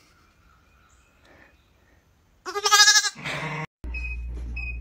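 A baby goat bleats once, a loud quavering bleat about two and a half seconds in that lasts about half a second. Near the end a steady low hum with short high beeps begins.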